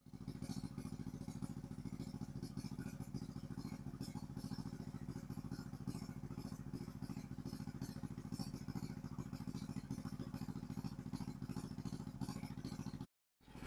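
Small engine running steadily at an even speed, with a fast regular beat.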